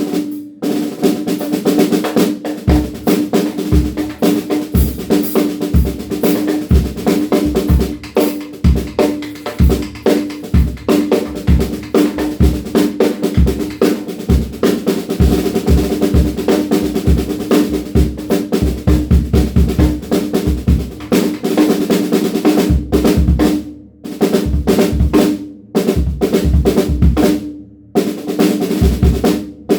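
DW Frequent Flyer drum kit played continuously, with rapid snare strokes and rolls over bass drum kicks, the snare drum being tested with different muffling. A steady ring hangs under the strokes, and the playing stops briefly a few times near the end.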